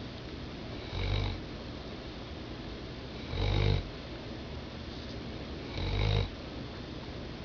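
Snoring: three snores about two and a half seconds apart, each lasting under half a second.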